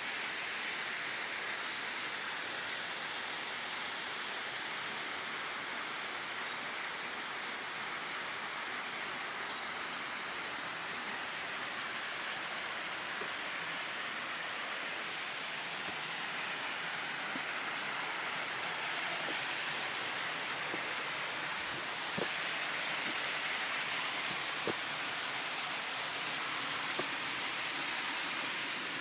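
A waterfall's water pouring down in a steady rushing hiss, swelling slightly louder over the last third.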